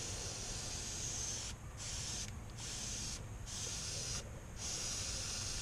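Airbrush spraying paint in about five short hissing bursts, each about a second or less, with brief pauses between them as the trigger is let off.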